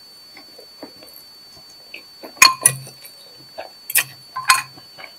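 Metal fork and spoon clinking sharply against a glass bowl four times in the second half, between small wet chewing and mouth clicks picked up close by a clip-on mic.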